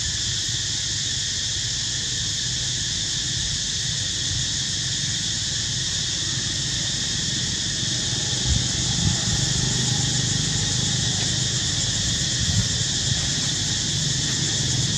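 Steady, shrill insect chorus in a tropical forest canopy, holding several high pitches. From about eight seconds in, a low rumble rises underneath, with a few soft thumps.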